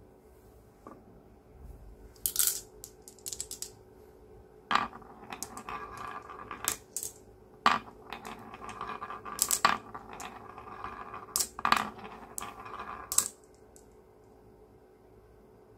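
Marbles rolling along a carved wooden marble-run track and clacking into one another as they pile up against a wooden stopper block, a sharp clack every second or two with a rolling rumble between. The clacks stop near the end.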